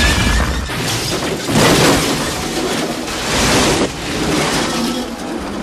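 Car explosion in a film sound mix: a deep boom with the wreck crashing down and debris clattering, swelling twice more before easing off near the end.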